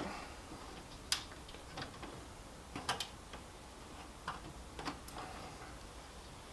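Faint, irregular light clicks and ticks, a few each second or two, as a ground wire is fastened to the ground bar in an electrical sub panel.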